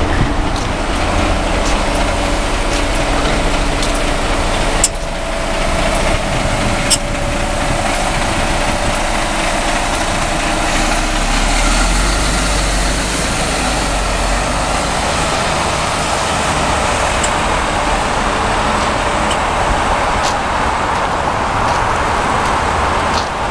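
Mercedes-Benz Citaro G articulated city bus running at the stop, then pulling away, with a steady low engine rumble. Two sharp clicks come about five and seven seconds in.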